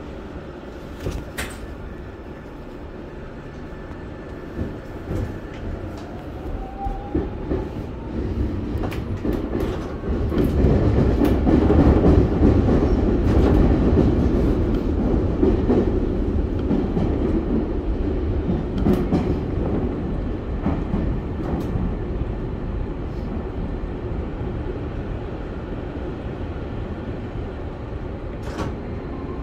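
Keio 1000 series electric train heard from inside the front car, pulling away and gathering speed: a faint rising motor whine, wheels clicking over the track, then a louder steady rumble through the tunnel.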